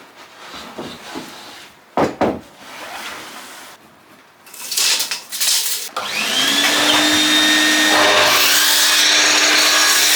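A few knocks of timber being handled, then about six seconds in an electric saw's motor spins up with a rising whine and runs loud and steady, used for cutting 4x2 timber to length.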